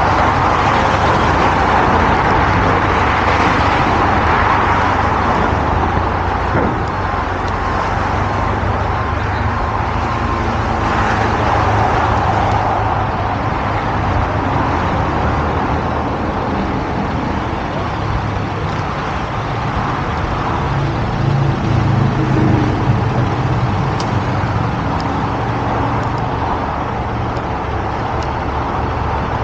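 Vehicle engines and road traffic: a steady low engine hum under a continuous roadway rush, with the hum swelling briefly about two-thirds of the way through.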